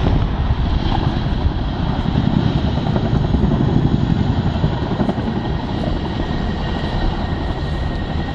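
Boeing CH-47 Chinook tandem-rotor helicopter flying a display manoeuvre: a loud, dense, low rotor beat from its two rotors, with a steady high whine above it.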